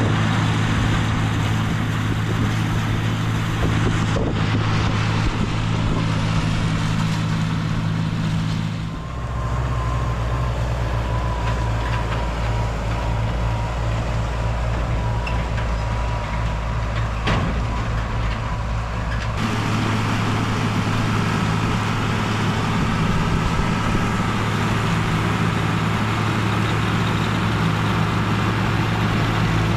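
Tractor engine running steadily, its low hum changing abruptly twice, about nine seconds in and again near twenty seconds.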